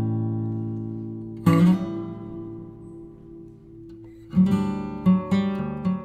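Background music: acoustic guitar chords strummed and left to ring, one strum about one and a half seconds in, then a quicker run of strums near the end.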